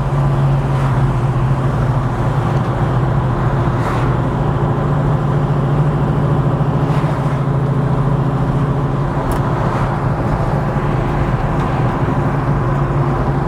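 A 1967 Chevrolet Chevelle's 396 big-block V8, breathing through headers and a Flowmaster dual exhaust, running steadily with a low, even note. The note eases off slightly after about eight seconds.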